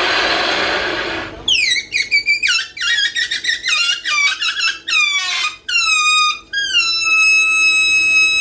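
High-pitched squealing that starts after a short burst of hiss: a quick run of squeals falling in pitch, then one long steady squeal.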